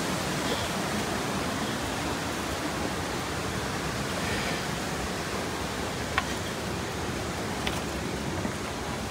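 Mountain stream rushing, a steady even wash of water, with two short sharp clicks in the second half.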